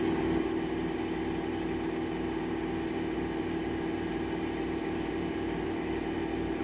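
Steady mechanical hum at an even level, with one strong low tone over a fainter low drone.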